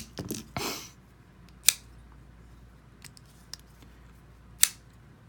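Two sharp metallic clicks about three seconds apart, with a short scratchy rustle of handling just before, from a CRKT Crossbones IKBS bearing-pivot pocketknife being flicked open and locked. The lock face has just been coated with Sharpie to cure its lock stick, and it now releases cleanly.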